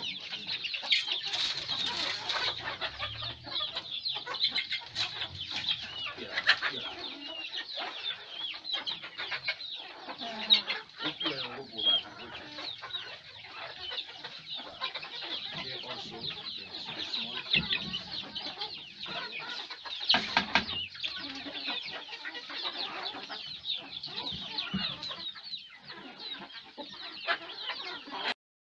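A flock of domestic chickens, hens and cockerels, clucking and cheeping continuously, many birds at once, as they crowd round to be fed, with occasional short knocks. The sound cuts off suddenly near the end.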